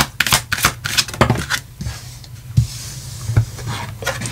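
Tarot cards being handled: a quick run of card clicks from the shuffle in the first second and a half, then a soft sliding rustle and a few light taps as cards are drawn and laid on the table. A low steady hum runs underneath.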